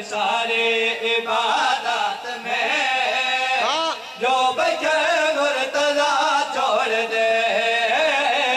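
Male voices chanting the refrain of an Urdu qasida (devotional poem) in long, held melodic lines.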